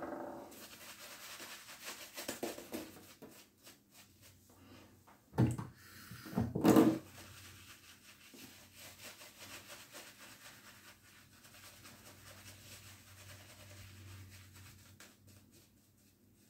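A lather-catcher safety razor with a single-edge Gem blade scraping through lathered stubble in repeated short strokes, with two louder knocks about five and a half and seven seconds in.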